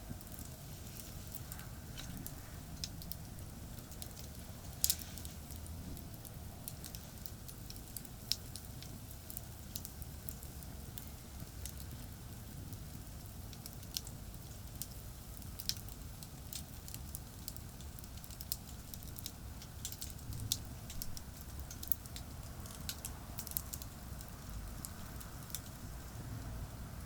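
Wood campfire crackling, with scattered sharp pops, the loudest about five seconds in, over a steady low rumble of distant expressway traffic.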